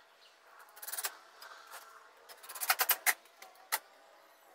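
Sharp knocks and clacks of wooden boards and a cordless drill being handled on a workbench: a few taps about a second in, a quick cluster of clacks near the middle and one more knock a little later.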